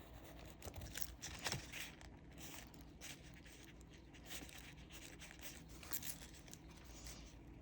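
Faint scattered taps and short scratchy strokes of a marker on paper, with light paper rustling, strongest about one to two and a half seconds in.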